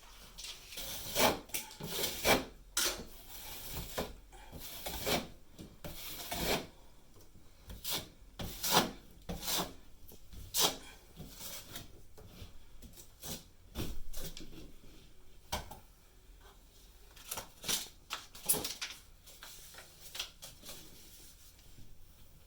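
Irregular scraping and rasping strokes of a hand tool worked against a hard surface such as drywall or wood, some strokes short and some drawn out.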